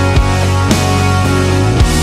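A full band mix of music playing through the Shadow Hills Mastering Compressor on the master bus: sustained pitched parts over a heavy low bass, with a few sharp drum hits.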